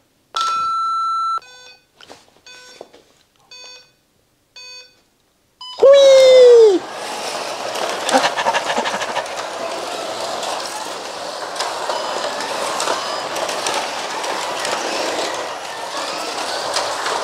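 Carrera Digital 124 start-light countdown: one long electronic beep, then a run of short beeps about a second apart as the five red lights come on. About six seconds in, a sudden loud falling tone marks the start. Then the slot cars run, a steady whirring rattle of small electric motors and pickups on the plastic track.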